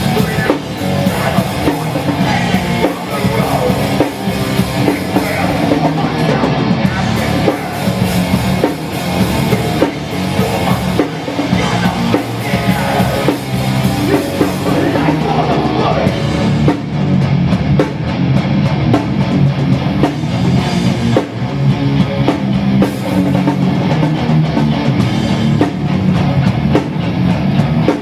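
Hardcore punk band playing live: loud distorted guitars, bass and pounding drum kit, with shouted vocals, heard through a room's amplified sound.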